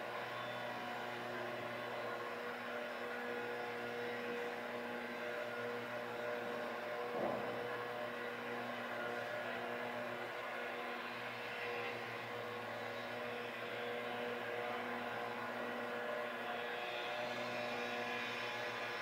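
Komatsu hydraulic excavator's diesel engine running steadily, with a single knock of debris about seven seconds in.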